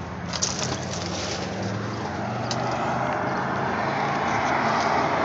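Steady mechanical running noise, like a motor vehicle or machinery, growing gradually louder, with a few sharp clicks about half a second in.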